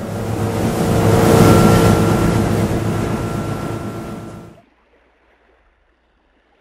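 Motorboat running at speed: a steady engine hum under the rush of the churning wake and wind on the microphone. It cuts off suddenly about four and a half seconds in.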